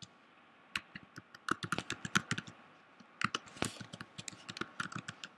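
Typing on a computer keyboard: quick runs of fairly quiet key clicks entering an email address, with a short pause about three seconds in.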